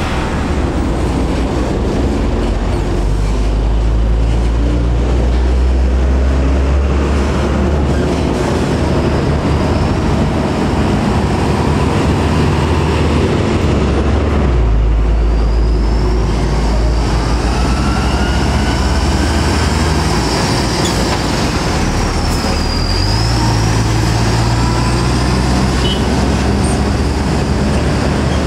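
Heavy diesel trucks passing at close range: first a UD Trucks lorry with a tarpaulin-covered trailer pulling away, then an Iveco Stralis tractor with a flatbed trailer driving by, engines running with a deep rumble and tyre noise. During the Iveco's pass a thin high whistle rises, dips and rises again.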